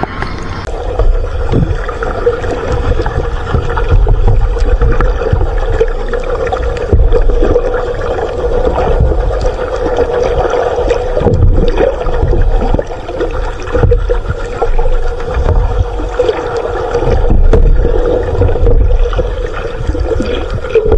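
Muffled underwater sound picked up by a submerged camera: low rumbling water movement with a steady hum and scattered knocks.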